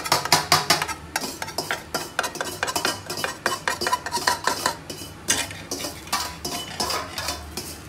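Slotted metal spatula scraping and tapping against a steel frying pan as an omelette cooks, quick irregular clinks and scrapes several a second, with a light sizzle of egg underneath.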